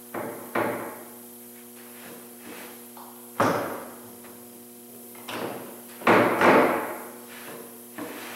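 About seven sharp wooden knocks and thumps as a plywood taper jig is handled and set against a table saw's fence, over a steady low hum. The saw is not yet running.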